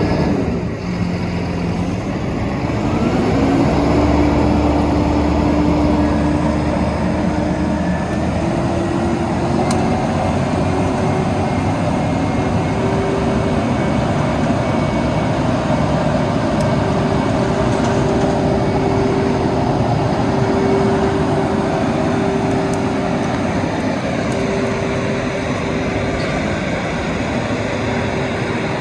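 Vögele Super 1800-3I asphalt paver's diesel engine and machinery running, its pitch climbing over the first few seconds and then holding steady.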